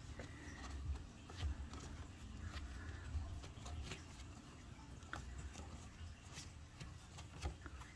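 Faint handling sounds with scattered small clicks and taps as a gloved hand moves the wires at an opened ceiling electrical box, over a low room rumble.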